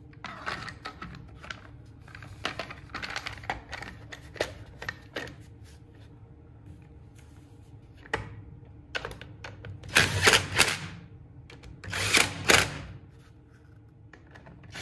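Plastic chainsaw top cover clicking and knocking as it is fitted by hand, then a cordless DeWalt drill/driver running in two short bursts near the end, driving the cover screws in.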